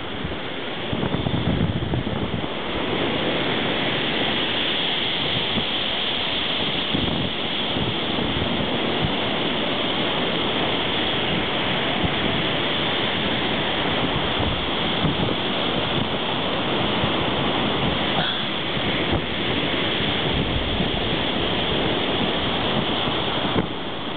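Waves washing in as a loud, steady rush of surf, with wind buffeting the microphone.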